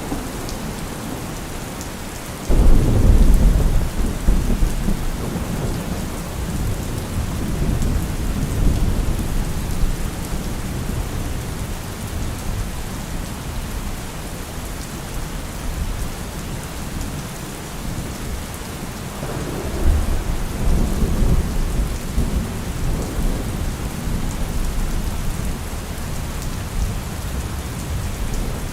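Steady rain with thunder: a sudden loud clap about two and a half seconds in that rolls on for several seconds, and a second rumble building later on.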